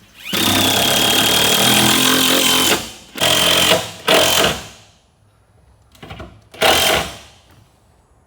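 Power driver sinking screws through the wooden floor sheet into the boat's stringers: one long run of about two and a half seconds, then several shorter bursts as the screws pull down.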